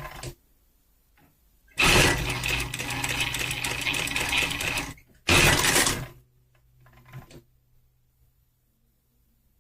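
Sunstar KM-235 industrial lockstitch sewing machine running fast for about three seconds and stopping. After a brief pause it runs again in a shorter burst, then a faint motor hum lingers and dies away.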